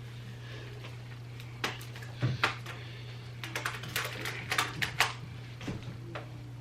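A quick, irregular run of sharp clicks and snaps over a steady low hum.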